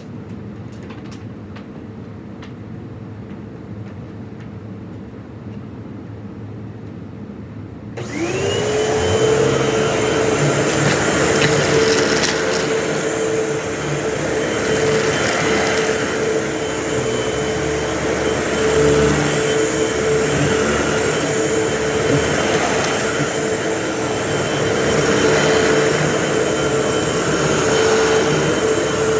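Vacuum cleaner switched on about eight seconds in: its motor whine climbs quickly to speed, then it runs steadily and loudly with a rushing suction noise. Before that, a quieter steady hum with a few light clicks.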